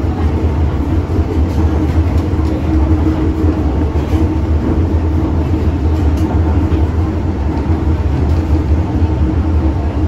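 Steady, loud rumble inside an MTR M-train passenger car while the train is running: wheel-on-rail and running-gear noise, with a faint steady high tone above it.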